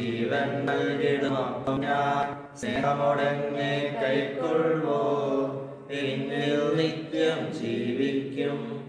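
Slow sung liturgical chant of the Mass, in long held, gliding notes, with brief breaks about two and a half and six seconds in.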